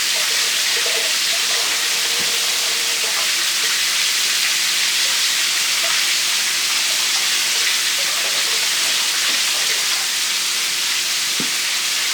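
Breaded chicken drumsticks frying in hot oil: a steady sizzle, with a faint knock about two seconds in and another near the end.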